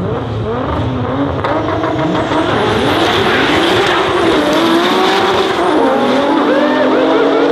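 Two turbocharged BMWs launching from the drag strip's start line and accelerating hard, an E30 Touring among them. The engines rev up and drop in pitch again at each gear change, over tyre squeal from wheelspin at the launch.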